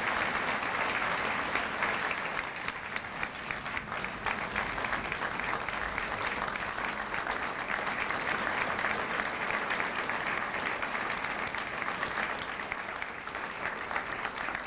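An audience applauding: a steady, dense round of clapping from a roomful of people.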